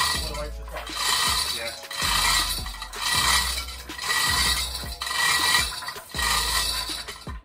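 A manual chain hoist being hauled by its hand chain. The chain rattles and clinks through the block in a regular rhythm of pulls, about one a second, as the hoist lowers a heavy load.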